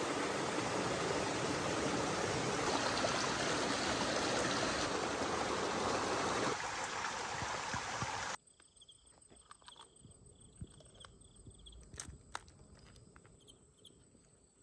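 Forest stream water running with a steady rushing sound that cuts off suddenly about eight seconds in. It gives way to a much quieter background with a faint steady insect hum and a few sharp clicks.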